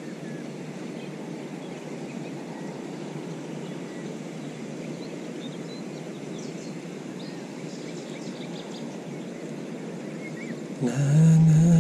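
Steady rushing of river water and wind on the microphone, with a few faint high chirps. About eleven seconds in, a loud low humming tone starts and holds a steady pitch.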